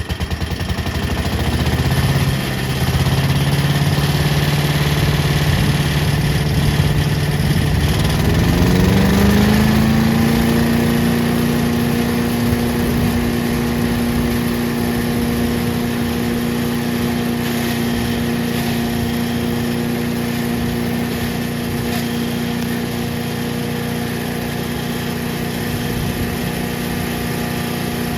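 Petrol engine of an MTD chipper/shredder running steadily, speeding up about eight to ten seconds in and then holding at the higher speed.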